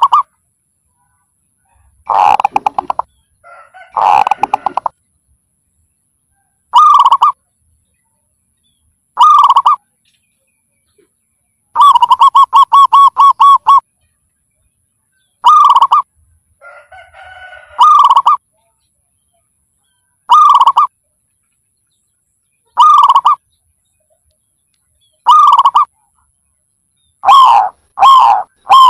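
Zebra dove calling: short rolling coos repeated every two to three seconds, with one longer rapid staccato trill of about ten notes midway. The calls come faster near the end.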